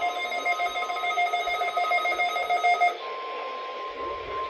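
Weather radio receivers sounding their alert: a chord of steady electronic tones, some of them pulsing, cuts off about three seconds in. It leaves a single steady pure tone, the National Weather Service weather radio warning alarm tone sent for the weekly test.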